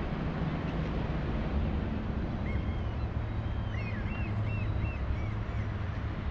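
Boat engine running steadily as a low hum. From about two and a half seconds in, a gull gives a quick series of short cries for about three seconds.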